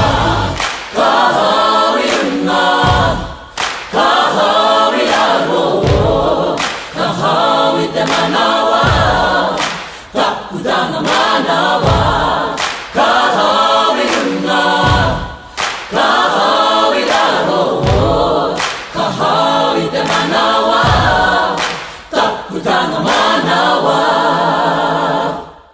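A choir singing a cappella in phrases, with a low thump about every three seconds.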